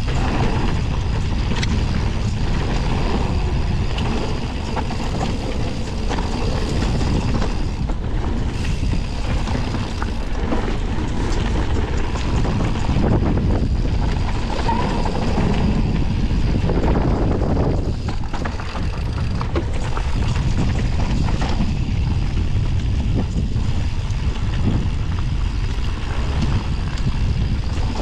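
Wind buffeting the microphone over the steady rumble of a downhill mountain bike's tyres running fast on a dirt trail, with frequent small rattles and knocks from the bike.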